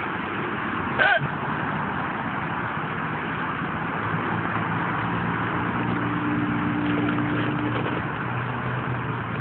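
Steady road and engine noise inside a car, with one short, loud hiccup about a second in.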